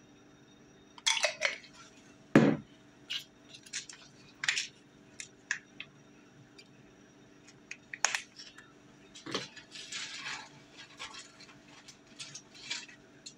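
Plastic food packaging being handled: short crinkles and rustles with scattered clicks as a squeeze pouch is worked over the food, with one louder thud about two seconds in.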